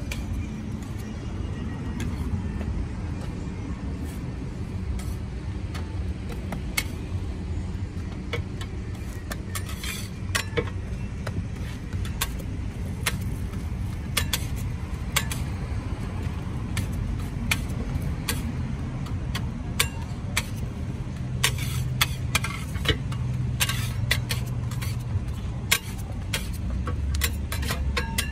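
Metal spatula and burger press clinking and scraping on a steel flat-top griddle, with many short sharp clicks scattered through, busiest in the second half. Underneath runs a steady low rumble of road traffic.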